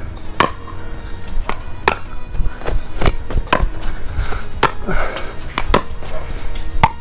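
Pickleball rally: paddles striking a plastic pickleball in a string of sharp pops, roughly a second apart, mixed with the ball bouncing on the hard court.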